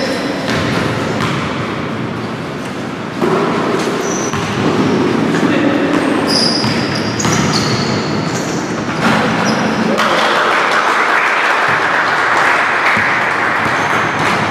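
Indoor basketball game: the ball bouncing on the hardwood court, short sneaker squeaks and the voices of players and onlookers, echoing in the gym. About ten seconds in, the noise becomes louder and steadier.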